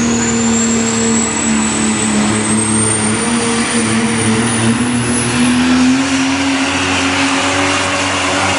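Super stock diesel four-wheel-drive Ram pickup running at full throttle while pulling the sled, with a high turbocharger whistle climbing steadily in pitch over the first six seconds and the engine note edging up near the end.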